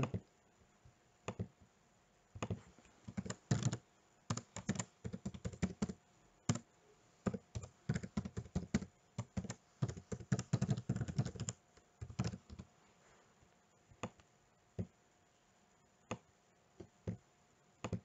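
Typing on a computer keyboard in quick bursts of keystrokes, then a few single, spaced-out clicks in the last few seconds.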